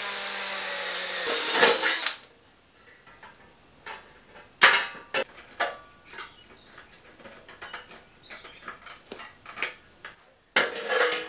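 Cordless drill running for about two seconds as it drives into light-gauge steel C-section, then scattered metallic clicks and clanks from handling the tools and steel pieces, with another short loud burst near the end.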